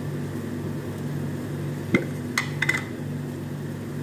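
A metal spoon clinks against a stainless steel frying pan of browning minced beef a few times about halfway through, the first clink the loudest, over a steady low hum.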